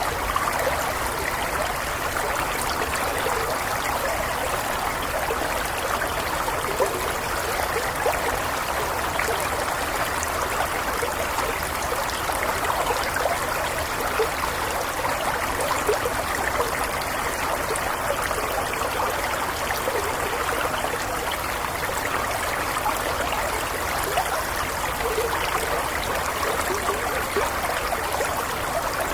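Small stream flowing steadily, water trickling and burbling over stones.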